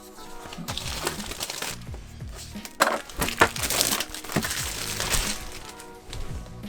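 Clear hard plastic laptop shell case being handled and pressed onto a MacBook, with rustling and crinkling and two sharp plastic clicks about three seconds in. Background music plays under it.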